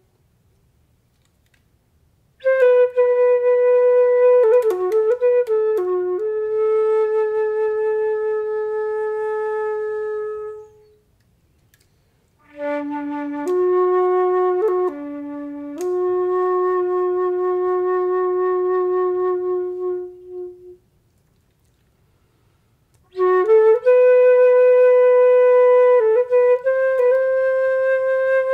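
Silver concert flute playing a slow, unaccompanied melody in three phrases, each a few quick notes settling into a long held note, with silent pauses between them.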